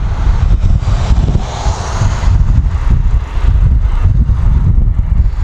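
Wind buffeting the microphone of a camera on a moving bicycle: a loud, steady low rumble, with a hiss that swells briefly about two seconds in.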